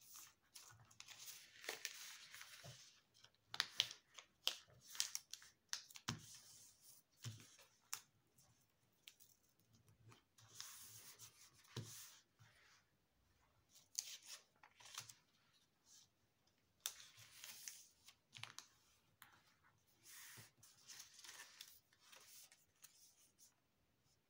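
A sheet of origami paper being folded by hand, with short rustles and crinkles as it is turned over and its creases are pressed flat, one every second or two, and a few soft clicks among them.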